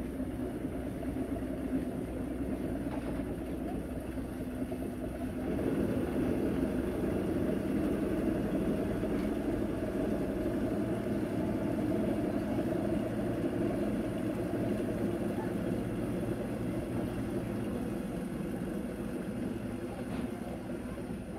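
Engine of a wooden passenger longboat running steadily as the boat pulls away from the landing. It gets louder about five seconds in, then slowly fades as the boat moves off across the river.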